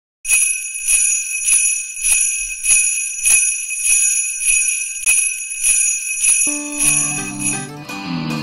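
Jingle bells shaken in a steady rhythm, a little under two shakes a second, their ringing running on between shakes. Near the end, music comes in beneath them and the shaking stops.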